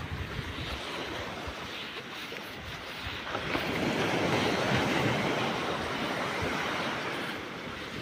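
Wind buffeting the microphone: a steady, noisy rush with low rumbling thumps, swelling louder for a few seconds in the middle.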